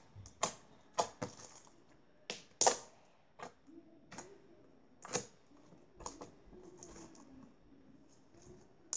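Homemade clear slime being poked and pressed with fingers, giving great poking sounds: irregular sharp wet pops and clicks, about a dozen, the loudest about two and a half seconds in.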